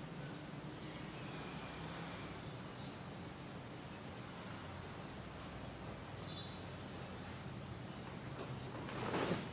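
A high, thin chirp repeating steadily a little under twice a second, with a couple of sharper, higher chirps about two seconds in, over a low steady hum. A short rustle near the end.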